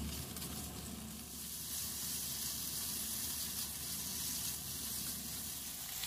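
Freshly added sliced pork and minced garlic frying in a little oil in a frying pan: a steady sizzle as the raw meat starts to cook.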